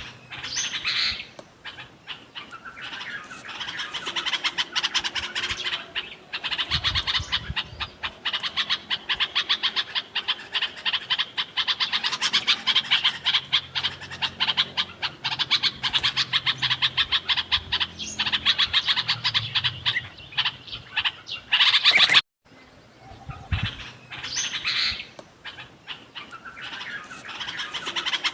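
Bulbuls chirping in rapid, dense chatter, many quick high notes running together. The sound cuts off abruptly about 22 seconds in, then the chirping starts again.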